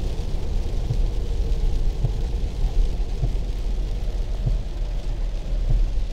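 Steady low rumble of engine and tyre noise inside the cabin of a moving car.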